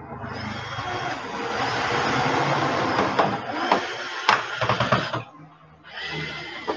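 Microwave oven's outer cabinet being closed up by hand: a long stretch of dense mechanical noise with several sharp clicks partway through, breaking off briefly about five seconds in and then starting again.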